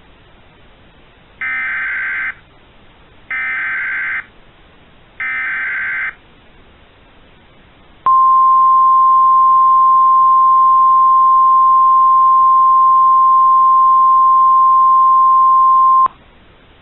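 Emergency Alert System SAME data header: three warbling digital data bursts of about a second each, a second apart, which open a new weather radio alert. Then the NOAA Weather Radio 1050 Hz warning alarm tone, one steady loud tone for about eight seconds that cuts off sharply.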